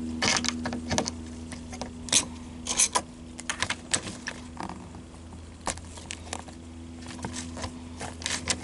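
A 10 mm ratchet wrench loosening the side-mirror mounting nuts on a 2004 Toyota Sequoia door: irregular metallic clicks and clinks in short runs, over a steady low hum.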